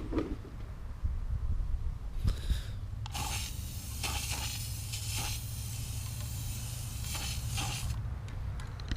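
Aerosol can of black spray paint: a short burst a little after two seconds, then a steady hiss for about five seconds as a light first coat goes onto the bolt heads. A low wind rumble on the microphone runs underneath.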